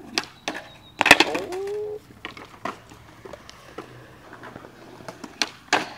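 Skateboard clacks and knocks on concrete: a loud impact about a second in, with a brief pitched cry right after it, then scattered lighter clicks of boards and wheels.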